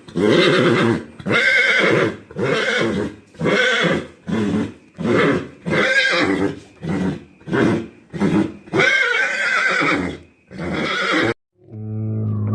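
Horse whinnying in a rapid series of short calls, about one a second. After a brief pause near the end, a different deep, steady, low-pitched animal call begins.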